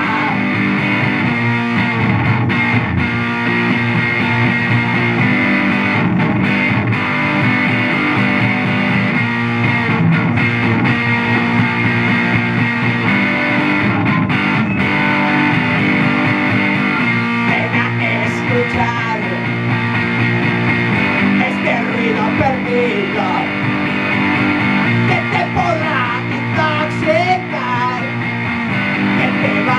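Electric guitar played through a Laney amplifier in a rock instrumental passage, sustained and continuous.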